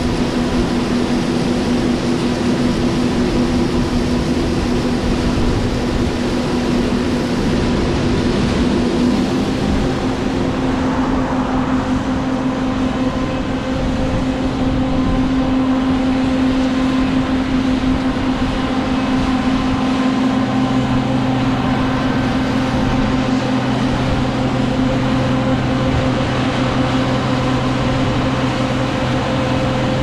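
Loud, steady machinery hum with several held tones. The pitch shifts about nine seconds in, and a lower hum joins about twenty seconds in.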